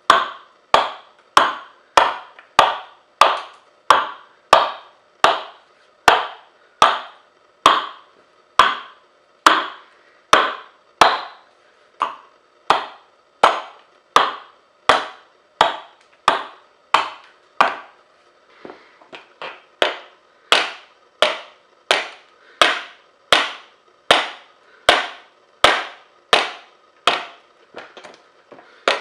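Hand-forged adze chopping into a wooden board, hollowing out the inside of a chest lid: a steady run of sharp wooden chops, about one and a half a second. A little past halfway there is a brief break of lighter knocks.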